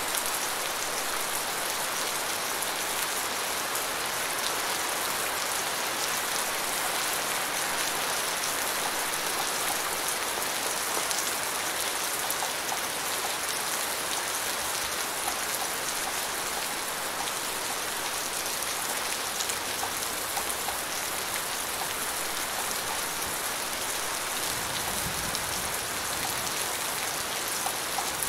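Steady rain falling on a surface: a dense, even hiss with many small drop ticks.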